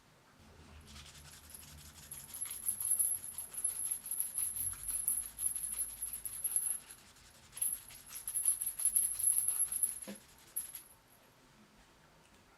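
Two tiny bells on a key ring jingling as the key fob is shaken, in two spells with a brief pause between them, stopping about eleven seconds in.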